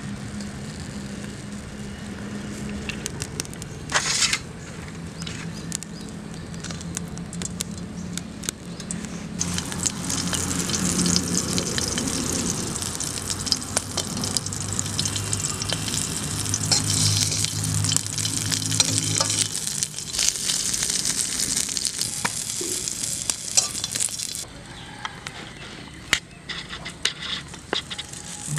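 Whole green and red chilies frying in oil in a metal wok over a wood fire. A loud sizzle starts about ten seconds in and cuts off a few seconds before the end, with light clicks and scrapes around it.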